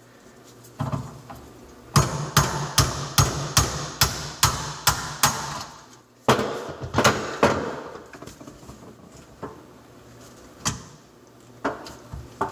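Hammer tapping a flathead screwdriver held against the plastic dishwasher-drain knockout in a garbage disposal's inlet, to punch the knockout out. Two quick runs of sharp taps, about two or three a second, are followed by a few single, spaced-out taps near the end.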